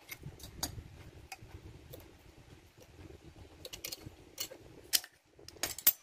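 Pliers and locking pliers clicking and clinking against a snail horn's steel mounting bracket as it is bent and handled: a scatter of sharp metallic ticks, the loudest few near the end.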